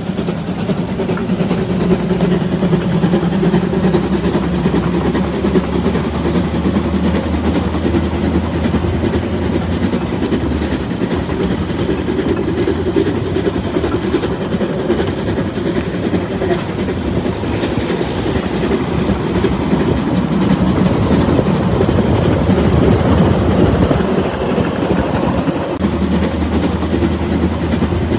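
Narrow-gauge steam train running along the line, a steady, continuous noise of the train moving over the track.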